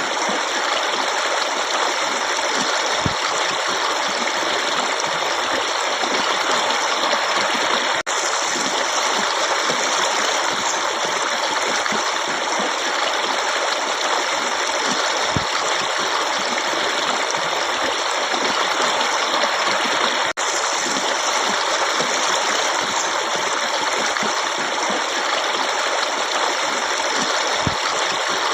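Water running in a forest stream: a steady, even rush, with a faint low knock three times.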